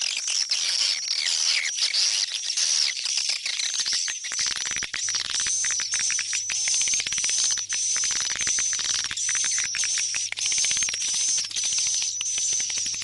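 Swiftlet calls: a dense, continuous twittering chatter of high chirps and clicks, the kind of recording played to lure swiftlets back to a swiftlet nesting house.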